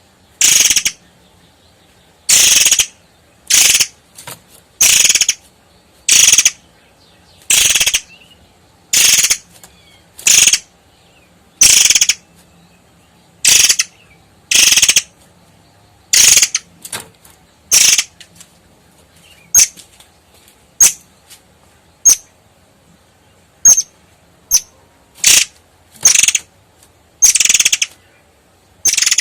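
Long-tailed sibia (murai air) calling in a long series of short, sharp, scratchy bursts, about one a second.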